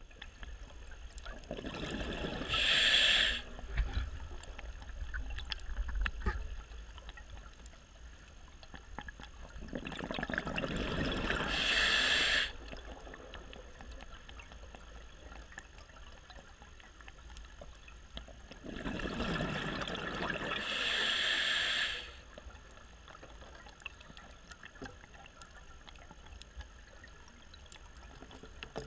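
A scuba diver breathing through a regulator underwater, three breaths about nine seconds apart. Each breath is a rising bubbling rush followed by a short, sharp hiss, over a steady low rumble.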